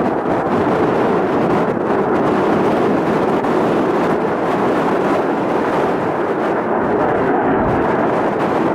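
Eurofighter Typhoon's twin jet engines giving a loud, steady roar during a display pass.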